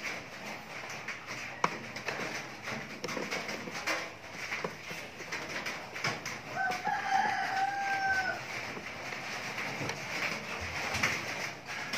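A rooster crows once, one long call about halfway through. Before it there is a sharp click about a second and a half in, and light clicks and taps from hand tools working on the circuit-breaker terminals.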